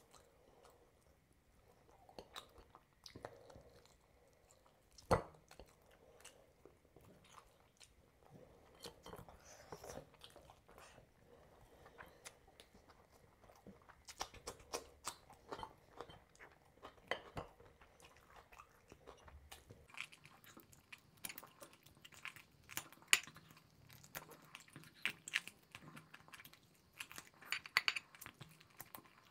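Close-miked chewing of a mouthful of rice and curry eaten by hand, with crisp crunching bites of raw cucumber and many short wet mouth clicks, one sharp one about five seconds in and a busier run in the second half.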